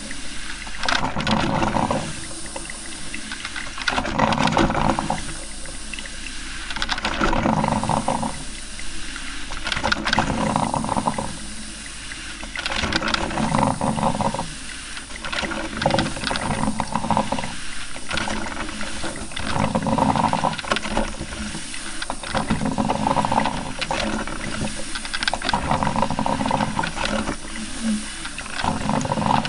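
Coffee maker brewing, hot water surging through in pulses every two to three seconds.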